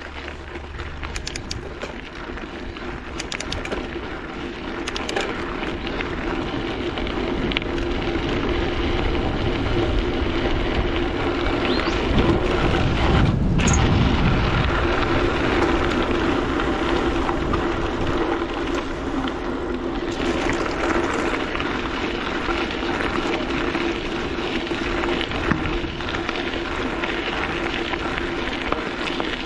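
Mountain bike rolling along a dirt bush trail: a continuous rumble and rattle of tyres on the ground and the bike's frame, with scattered clicks near the start, loudest around the middle.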